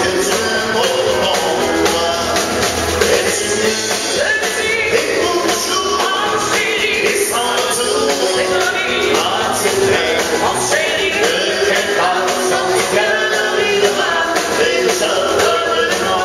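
Live band playing a country-western song: a woman singing lead with a man joining on vocals, over strummed acoustic guitar, drums and keyboard.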